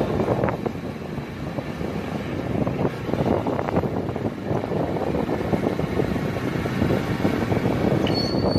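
Motorcycle engine of a Philippine tricycle running steadily as it rides along a street, heard from the sidecar with road and wind noise mixed in.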